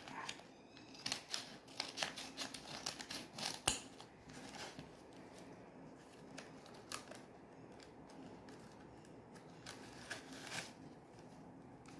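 Scissors snipping through a brown paper courier envelope: a run of short, crisp cuts over the first five seconds or so. After that comes sparser rustling and crinkling of the paper as the envelope is pulled open by hand.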